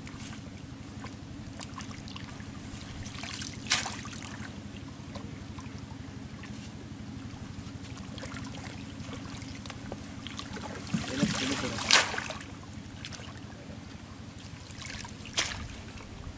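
Water sloshing and splashing around a person wading waist-deep and pulling water hyacinth along a bamboo fish fence. There are a few sharper splashes, the loudest about twelve seconds in, over a steady low hum.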